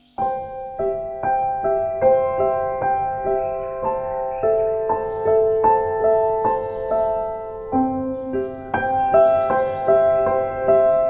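Soft piano music, gentle notes played about twice a second, starting abruptly just after a quiet moment.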